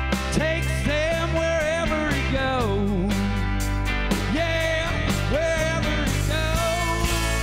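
Live rock band playing a song: a lead melody slides and bends between held, wavering notes over steady bass and drums.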